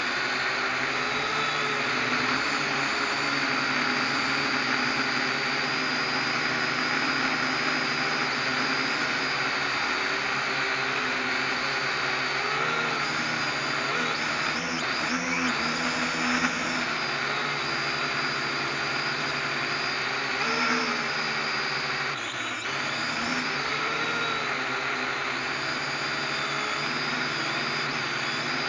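Small drone's electric motors and propellers whirring steadily, heard from its own onboard camera, with the pitch wavering up and down as it manoeuvres, most around the middle and again about three-quarters through.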